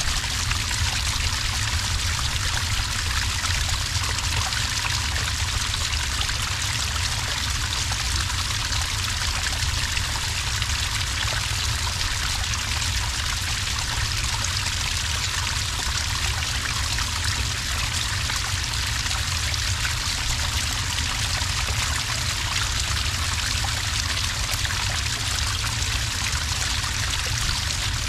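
Small cascade of water pouring steadily into sand, an even, unbroken trickling and splashing.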